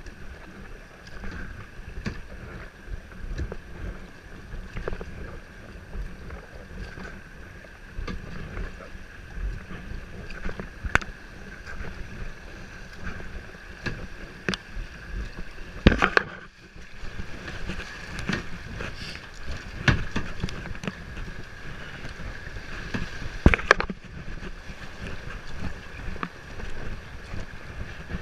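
Paddling a kayak on a river: a steady wash of water and wind noise on the microphone, with scattered small knocks and splashes, and two sharp clicks a little past halfway and again about seven seconds later.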